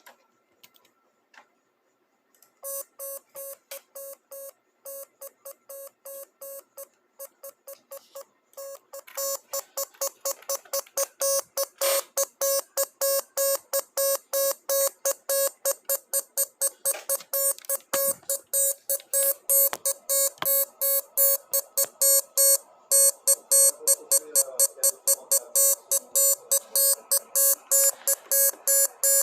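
Morse code sent as an electronic beep tone keyed on and off in short and longer beeps, spelling out 'my name is chicky'. The beeping starts a couple of seconds in, breaks off briefly about seven seconds in, then resumes faster and louder.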